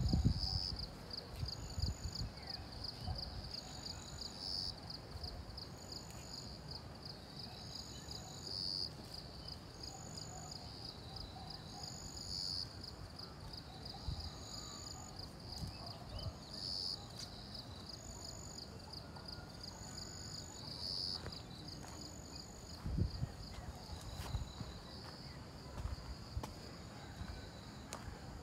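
Insects trilling in a steady, fast-pulsing high-pitched chorus, with a shorter, higher call repeating about every two seconds. Irregular low rumbles come and go underneath, strongest near the end.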